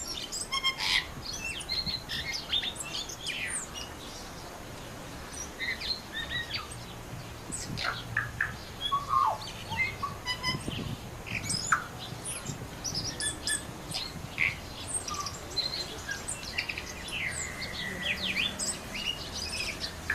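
Several birds chirping and calling, with many short, high chirps and whistled notes overlapping one another.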